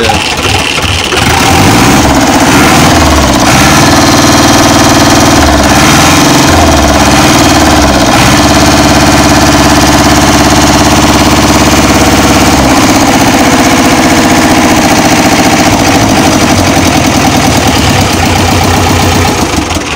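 New Holland Dabung 85 tractor's diesel engine running, heard at the exhaust stack, with a note the owner likens to a Peter engine; he blames it on tappets that keep working loose and need readjusting after every spell of load.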